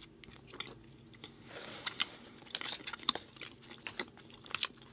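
A person chewing a crunchy cookie close to the microphone: irregular crisp crackles and wet mouth clicks, with a short soft rustle about two seconds in.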